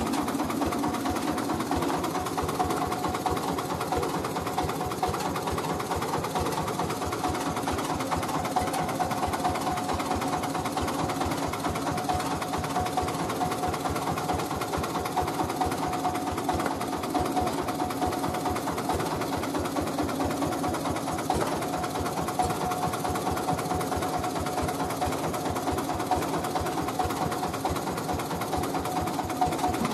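Mobile rice-milling machine's engine idling steadily, with a fast, even chatter.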